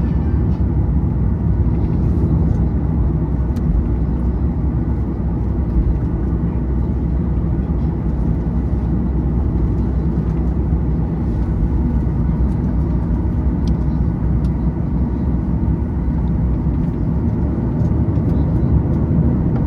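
Steady low rumble in the rear cabin of a Boeing 737-900ER from its CFM56-7B engines at low power before takeoff.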